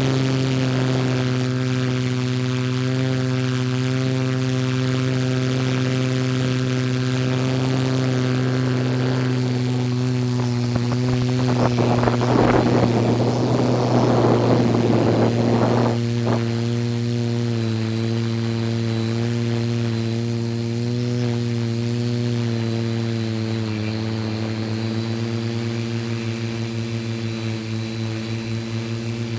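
Multirotor camera drone's motors and propellers humming steadily, heard from the drone's own camera, with a rushing noise swelling over it for a few seconds partway through.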